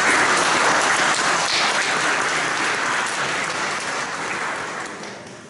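Audience applauding in a large hall, the clapping dying away near the end.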